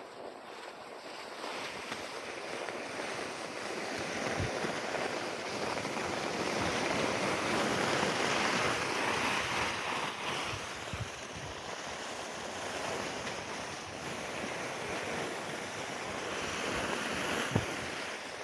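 Cross-country skis hissing over groomed corduroy snow at speed, mixed with wind on the microphone. The rush builds to its loudest midway, then eases, with a few soft knocks and one sharper knock near the end.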